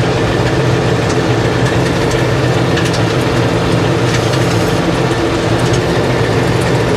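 Tractor diesel engine running steadily at idle, with an even, unchanging note.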